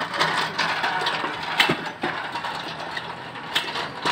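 An empty hand pallet jack being pulled over brick paving, its wheels and forks rattling and clattering continuously. Two sharper knocks stand out, one about a second and a half in and one near the end.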